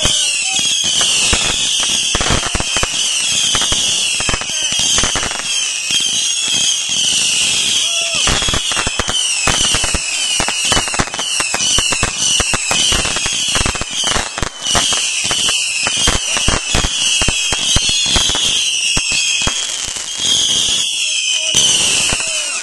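Ground firework fountains going off continuously: many overlapping short falling whistles over dense crackling and popping.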